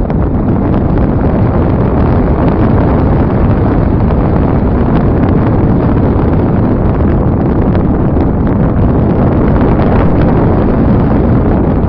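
Loud, steady wind rush from airflow buffeting the microphone of a phone carried aboard a radio-controlled slope glider in flight.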